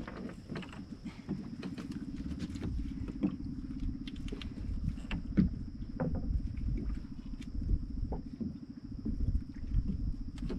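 Small fishing boat's engine running steadily with a low pulsing hum, under scattered knocks, clicks and rattles from work on board.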